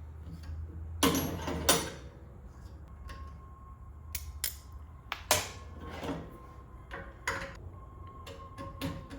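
Irregular metallic clicks and knocks of hand tools and small metal parts as a bottle rinser's clamp mechanism held in a vise is taken apart, its left-hand-threaded screw and washers being undone. The two loudest knocks come about a second and a second and a half in.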